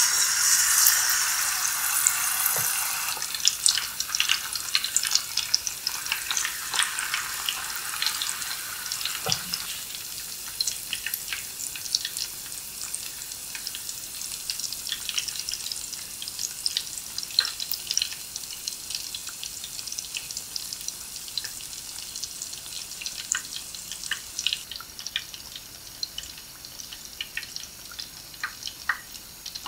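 Kimchi kakiage (tempura fritters) deep-frying in hot oil in a pot: a loud sizzle as the battered mix goes in, settling after about three seconds into steady crackling and popping that slowly grows quieter as the fritters cook.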